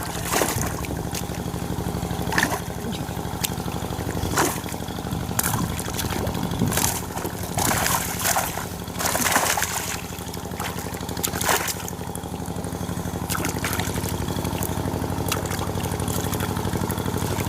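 A small engine running steadily. Water splashes and sloshes on top of it at intervals, most of them in the middle of the stretch.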